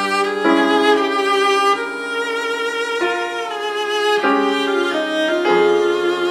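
Cello and piano duo playing classical music: the cello bows long sustained notes in a melody that moves to a new note about every second, with piano accompaniment.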